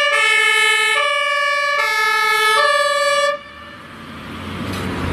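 German ambulance two-tone siren alternating between a high and a low note, cutting off sharply about three seconds in. Road traffic noise then rises in its place.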